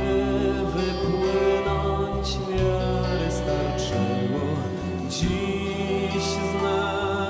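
Music with singing voices over sustained chords and a changing bass line.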